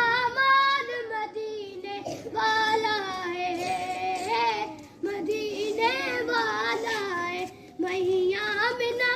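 A child's voice singing a naat, an Urdu devotional praise song, in long wavering phrases broken by short pauses for breath.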